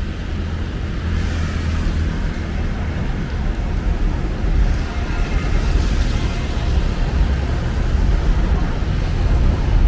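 City road traffic passing on a wet main road: a steady low rumble of engines with tyre hiss, vehicles swelling past about a second in and again around five seconds in.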